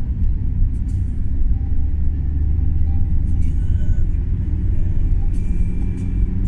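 Steady low rumble of a car driving, heard from inside the cabin: engine and tyre noise on an asphalt road.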